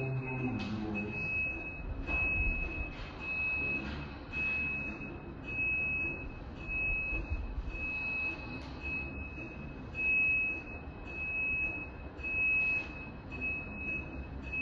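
High-pitched electronic beeper sounding in repeated short beeps, roughly one every two-thirds of a second, like a tractor's fitted reversing or indicator alarm, over a low rumble.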